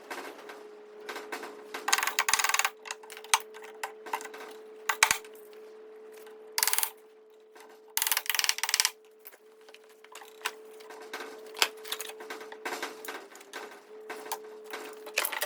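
Workshop work sounds: irregular clicks and knocks and several short hissing bursts of under a second, over a steady hum.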